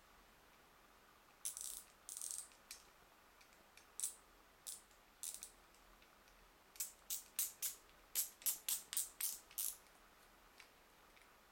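Shimano Chronarch 51E baitcasting reel's mechanism clicking and ratcheting as it is worked by hand: two short rattles, a few scattered clicks, then a run of about a dozen quick, sharp clicks at roughly three to four a second.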